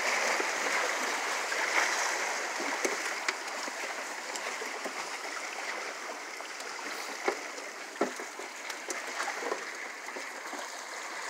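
Small waves washing and splashing against shoreline rocks, a steady rushing hiss, with a few light clicks and knocks scattered through it.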